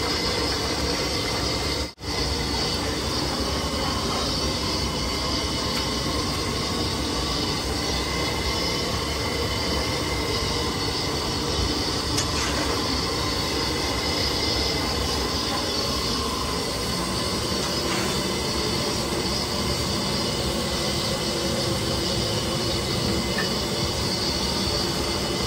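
Steady rushing noise of a high-pressure gas burner firing under a large cooking pan, with faint high whistling tones in it. It drops out for an instant about two seconds in.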